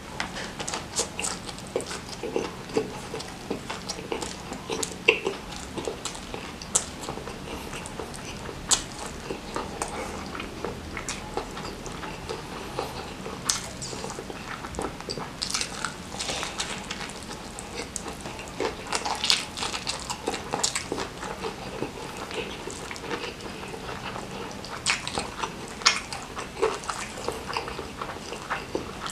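Close-miked eating: chewing and biting into rice and crispy fried chicken coated in crushed chillies, with many short, sharp crunches and mouth clicks.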